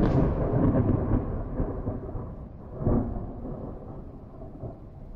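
Thunder rolling and slowly fading, with a short renewed swell of rumble about three seconds in.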